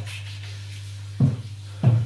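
Two short, dull knocks, about a second apart, as hands bump the aquarium's light unit, over a steady low electrical hum.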